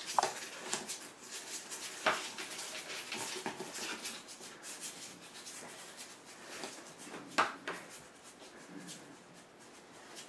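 Puppies scrabbling with their claws on a cardboard box and a wooden floor: a run of scratching and rustling with a few sharper knocks, the loudest about 2 s and 7.5 s in.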